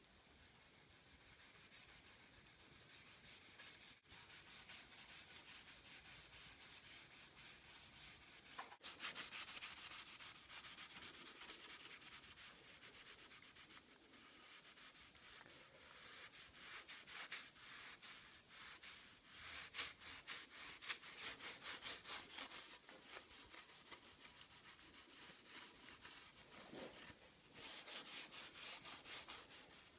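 Cloth rag rubbing wood stain into a pine board in quick back-and-forth strokes, a soft scrubbing hiss that gets louder about nine seconds in.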